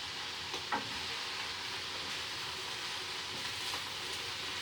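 Chopped vegetables sizzling steadily in a hot frying pan during a stir fry, with a few light clicks.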